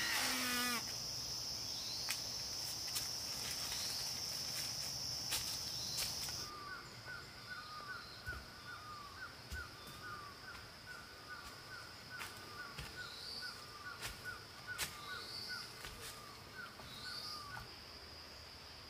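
Forest ambience: a high, steady insect buzz that cuts off about six seconds in, followed by a run of short repeated chirping calls, about two a second, for some ten seconds over a faint, steady high insect trill.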